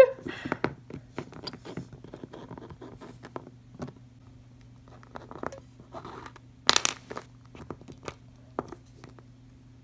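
Handling noise from plastic Littlest Pet Shop figurines being moved and set down on a tabletop set: scattered light clicks and scrapes, with a brief louder rustle about seven seconds in, over a faint steady hum.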